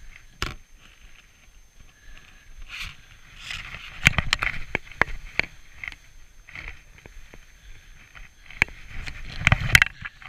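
Skis scraping and chattering on snow during turns down a steep slope, with scattered sharp knocks and crackles. The knocks are loudest about four seconds in and again near the end.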